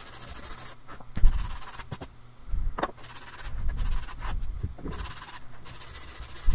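Sandpaper on a foam sanding block rubbed back and forth by hand over a wooden board, a rasping stroke about once a second, with a couple of knocks from the block or board on the bench.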